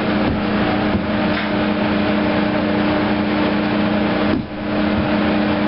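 Steady drone of the air sparge system's Rietschle air compressor and Gast vacuum blower running together, a continuous machine hum with a few held tones. The level dips briefly about four and a half seconds in.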